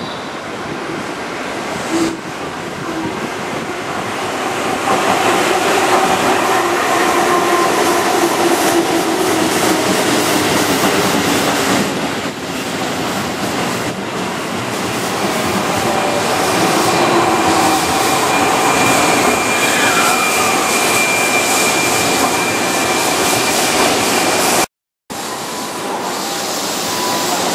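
Keihan 6000-series electric train (set 6012) running along curved track and passing close by, its running noise growing louder as it nears, with a thin high squeal over the second half. Near the end the sound cuts off abruptly, then resumes with the train standing at the platform.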